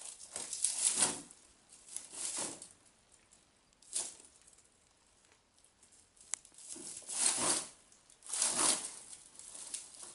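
A goat tugging and chewing at Christmas-tree branches lying in straw: needles and straw rustle and crackle in about five short bursts, with one sharp snap in between.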